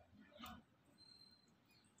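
Near silence, with one faint, short soft noise about half a second in and a faint thin high tone a little later.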